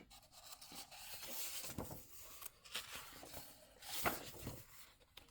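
Faint rustling of paper as the workbook's pages are handled and turned, a few soft swishes.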